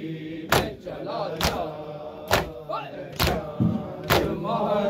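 Mourners beating their chests in unison (matam), one loud slap about every second, in time with voices chanting a nauha lament.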